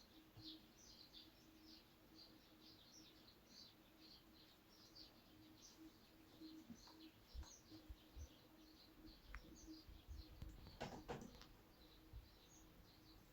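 Faint birds chirping, many short high chirps in quick succession, over a low steady hum. A couple of soft knocks come about eleven seconds in.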